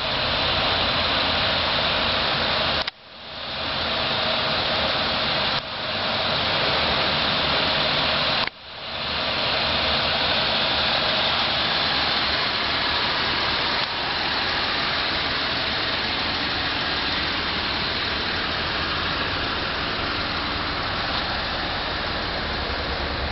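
A steady loud hiss over a low, even hum, like a car idling. It cuts out sharply twice, about three and eight and a half seconds in, and swells back each time.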